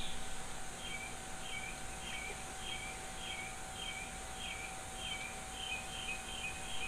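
A bird calling over and over: about a dozen short notes, each slurring down and then levelling off, roughly two a second and coming a little closer together near the end. A faint steady hum runs underneath.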